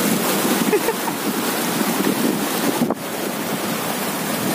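Sea surf washing against shoreline rocks, with wind buffeting the microphone; the sound dips briefly about three seconds in.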